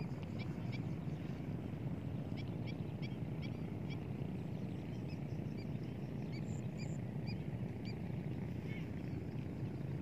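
Many short, high bird chirps from several birds calling across an open wetland, over a steady low rumble.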